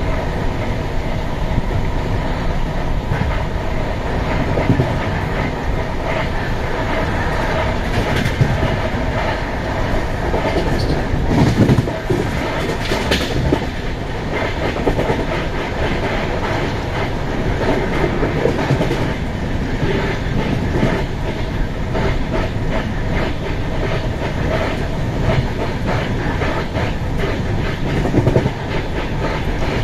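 A moving passenger train heard close up from an open coach doorway: a steady rumble and rush of wheels and wind, with the wheels clicking repeatedly over rail joints.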